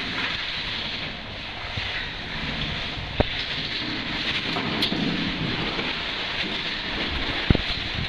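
Cave stream running and splashing through a water-floored passage: a steady rushing hiss of water, with two sharp knocks, one about three seconds in and one near the end.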